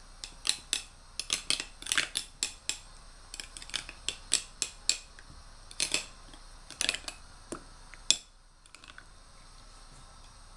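A spoon stirring thick mayonnaise dressing in a small glass bowl, tapping and clinking against the glass in quick, irregular strokes. The tapping stops about eight seconds in.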